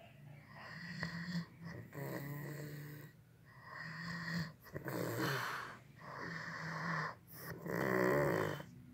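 Snoring: a slow series of about six snores, roughly one every second and a half, each a low drone with breath noise over it.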